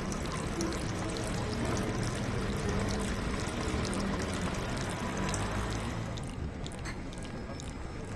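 Running water pouring and splashing steadily, its hiss thinning out about six seconds in, with faint music underneath.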